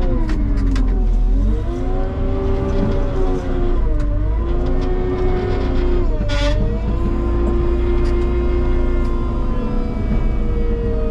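Tractor diesel engine running hard, heard from inside the cab; its pitch sags and recovers three times as the front loader takes the load. A short hiss comes about six seconds in.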